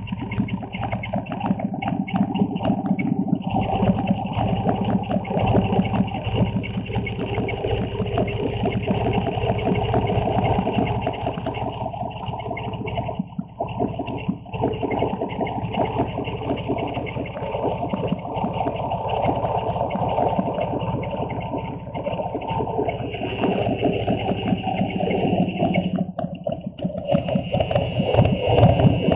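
Harley-Davidson V-twin engine running steadily as the motorcycle cruises, its note easing off briefly twice, once near the middle and once near the end. A hissing rush of wind and road noise grows louder in the last few seconds.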